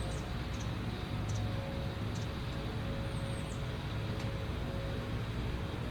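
Steady, even outdoor rumble with a low hum, in the manner of distant engine or traffic noise, broken only by a few faint high chirps, once near the start and again about three seconds in.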